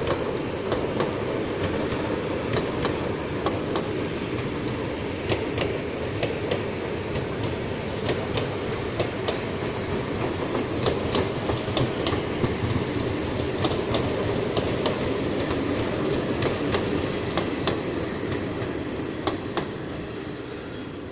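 EPL9T electric multiple unit rolling past, a steady rumble with irregular clicks and clacks from its wheels crossing rail joints, fading away near the end.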